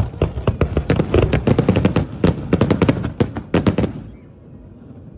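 Aerial fireworks going off in a rapid barrage of overlapping bangs and crackles, stopping abruptly about four seconds in.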